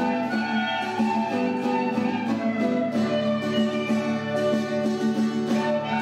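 A group of school recorders playing a melody together, the notes changing every fraction of a second, over a steady lower-pitched accompaniment.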